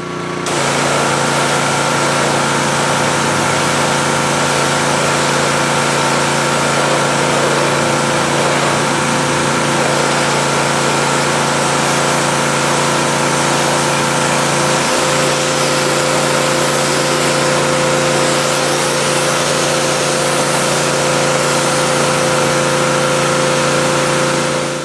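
TEANDE 4200 PSI gas pressure washer running steadily, its engine under load with the loud hiss of the high-pressure water jet spraying.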